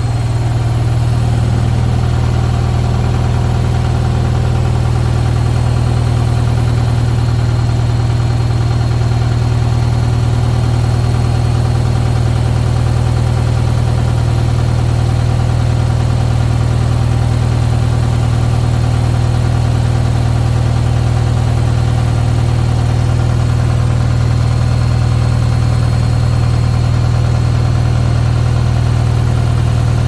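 Hotpoint Ultima WT741 washing machine spinning a load of towels in its final spin: a loud, steady low hum from the drum and motor. The tub is running without its shock absorbers, which have come off.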